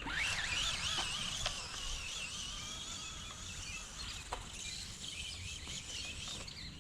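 Small electric motor and gearbox of a 1:18 RC monster truck whining as it drives through tall wet grass. The pitch rises at once, then wavers up and down with the throttle.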